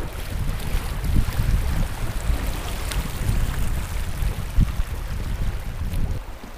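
Flowing river water with wind buffeting the microphone in a low, uneven rumble. There is a single thump about four and a half seconds in, and the wind rumble dies down near the end.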